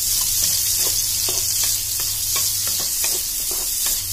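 Sliced shallots and onion sizzling in hot coconut oil, stirred with a wooden spatula. The spatula scrapes the pan in short strokes about three times a second over the steady frying hiss.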